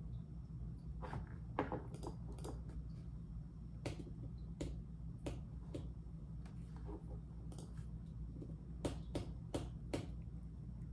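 Unhurried typing on a computer keyboard: scattered key clicks, one to a few at a time with pauses between, over a steady low hum.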